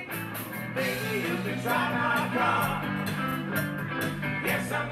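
Live rock and roll band playing: a lead vocal over electric guitars, bass and drums, with a steady cymbal beat.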